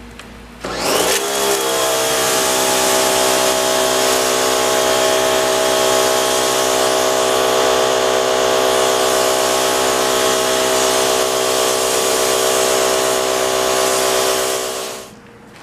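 A Sun Joe electric pressure washer starts up about a second in, its motor and pump settling into a steady hum, with the loud hiss of the MTM Hydro SGS28 spray gun's jet rinsing foam off a car; both stop near the end.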